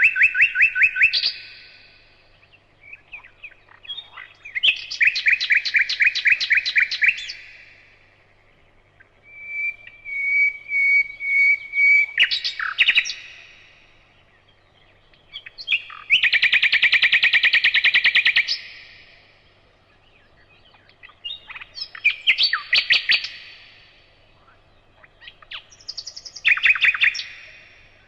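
A songbird singing: phrases of fast, trilled notes about two to three seconds long, repeated every four to five seconds with short pauses between.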